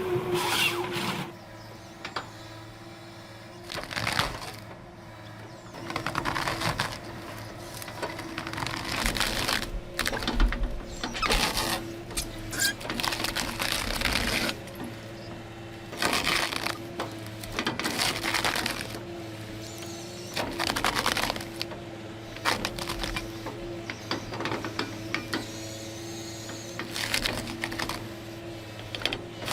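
Heavy forestry machine running steadily, with irregular bursts of mechanical clatter and rattling every second or two.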